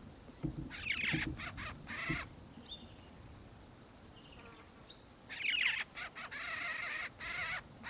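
Black-faced cuckoo-shrike calling: two bouts of wavering, rolling calls, a short one about a second in and a longer one from about five seconds in.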